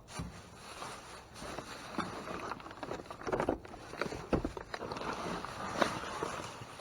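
Rummaging through discarded goods in a dumpster: irregular rustling with scattered knocks and clatters as items are handled and shifted, a few sharper knocks in the second half.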